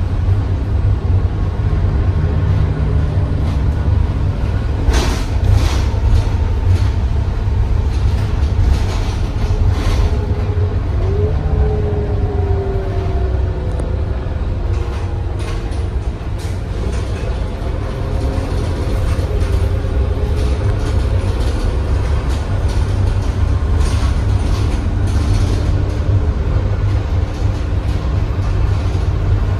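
Inside a moving city transit bus: a steady low drone of the engine and road noise, with rattles and clunks from the bus's body and fittings, the strongest about five seconds in.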